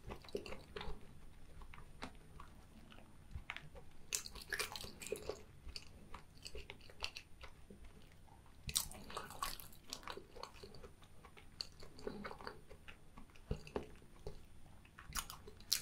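A person chewing a mouthful of food with the mouth closed: soft sticky chewing and smacking sounds that come in bursts, the loudest about four and nine seconds in.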